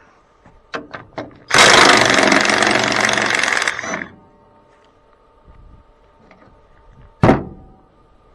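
Power impact wrench hammering for about two and a half seconds as it works a rusted bolt loose on a bulldozer radiator, after a few light clicks of handling the tool. A single sharp metal knock near the end.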